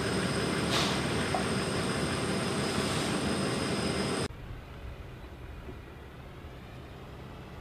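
Steady turbine whine and rush of the Antonov An-124-100 running, heard inside its cargo hold, with two high whistling tones above it. It cuts off suddenly about four seconds in, leaving quieter outdoor wind and background noise.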